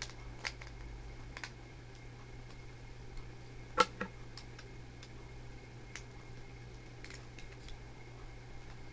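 Scattered small clicks and ticks of Beyblade metal and plastic parts being handled and fitted together, with a sharper double click about four seconds in. A steady low hum runs underneath.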